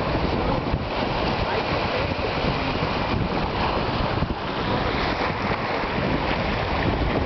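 Surf breaking at a beach, heard through heavy wind buffeting the microphone.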